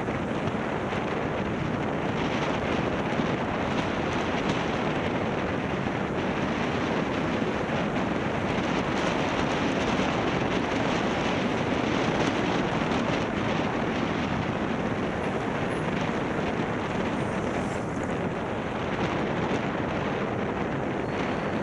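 Steady rush of wind over a roof-mounted camera's microphone as the vehicle drives, mixed with road and traffic noise.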